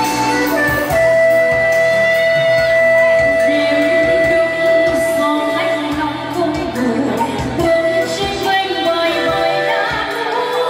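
Music with singing: a Vietnamese pop song performed live, with one long held note from about a second in to about six seconds.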